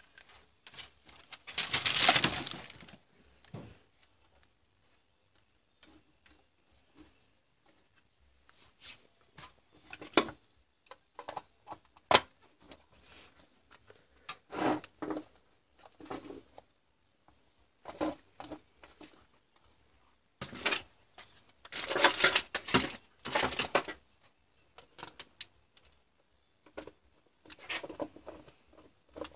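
Handling noise from a plastic cordless-drill battery case being closed over its cells and wiring: irregular rustling and scraping, with a few sharp plastic clicks.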